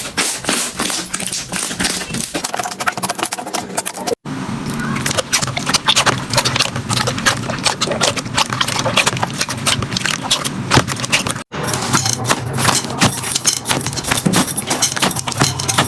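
Slime being squished and worked, giving dense sticky clicks, crackles and pops. The sound breaks off sharply twice and resumes straight away.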